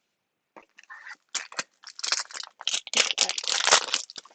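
A trading-card pack wrapper being crinkled and torn open by hand: a run of irregular crackles that starts under a second in and is loudest about three seconds in.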